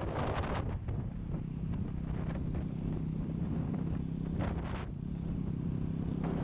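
Motorcycle engine running at a steady cruising speed, its note holding even, with wind rushing over the microphone in gusts.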